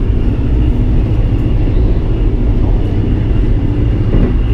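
Sleeper train running at speed, heard from inside the carriage: a steady low rumble with a faint, high, steady tone above it.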